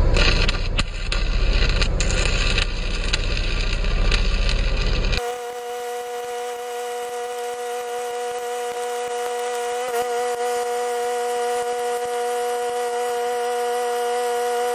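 Stick-welding arc crackling as a 7018 rod burns along the edge of a steel plate, over a steady hum. A louder rumbling noise fills the first five seconds and cuts off suddenly.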